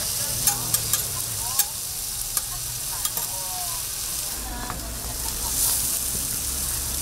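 Burger patty, sausages, bacon and egg sizzling on a flat-top griddle, a steady frying hiss, with a few sharp clicks in the first three seconds.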